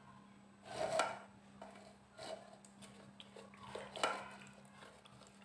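A plastic spoon pressing and scraping thick mango-and-jaggery pulp against a steel mesh sieve to strain it: a few soft, wet scrapes, the clearest about a second in and near four seconds.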